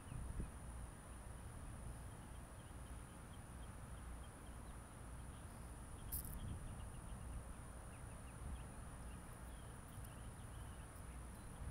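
Faint outdoor ambience: a low wind rumble on the microphone, scattered small bird chirps and a steady high-pitched insect drone. A brief sharp click comes about six seconds in.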